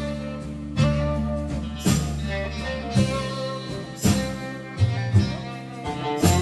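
Background music with a steady beat, about one strong hit a second, over sustained chords.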